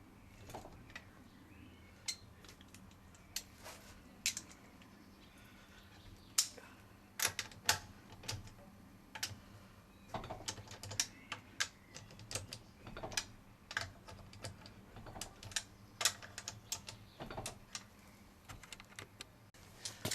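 Metal hand tools clicking and clinking while the wheel is being refitted: a run of irregular sharp clicks, sparse at first and more frequent after about ten seconds.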